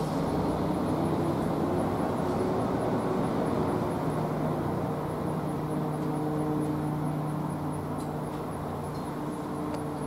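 W. S. Darley Champion outdoor warning siren coasting down after a short alert, its rotor slowing to a low, steady hum and whir well below its alert pitch.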